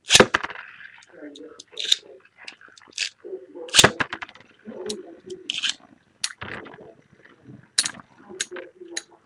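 Two Beyblade spinning tops launched onto a plastic tub lid, then clacking against each other and the lid with sharp, irregular clicks. The loudest clatter comes right at the launch, with another hard clash about four seconds in.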